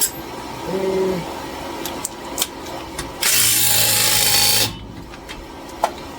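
A power tool runs in one steady burst of about a second and a half, a little past halfway through, spinning a lug nut down onto a wheel stud, with a few light clicks and knocks of the socket and nuts around it.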